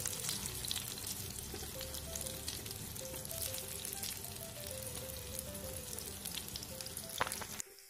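Oil sizzling and crackling in a frying pan around battered tempe slices (mendoan coated in egg white and oats) as they shallow-fry. The sizzle cuts off suddenly near the end.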